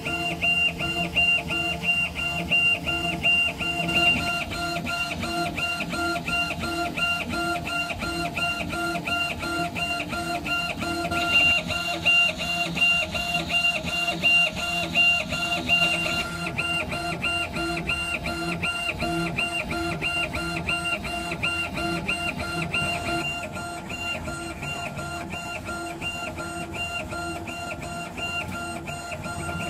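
CO2 laser engraving machine raster-engraving: the laser head's drive whines as it shuttles rapidly back and forth, the whine pulsing evenly a few times a second as the head reverses, over a steady low hum.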